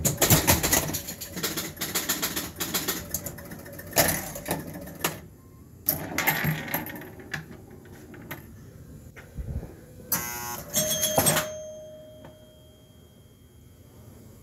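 Gottlieb Cleopatra pinball machine in play: a fast run of sharp clicks and knocks from the ball, bumpers, flippers and switches. About ten seconds in there is a short rattling burst, then a ringing tone that fades over a couple of seconds.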